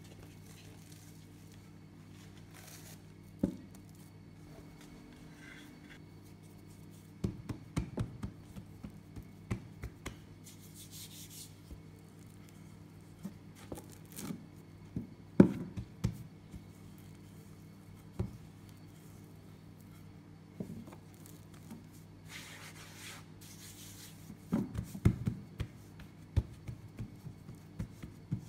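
Hands kneading and pressing a ball of biscuit dough on a floured silicone pastry mat: irregular soft thumps and rubbing in three clusters, the loudest thump about halfway through, over a steady low hum.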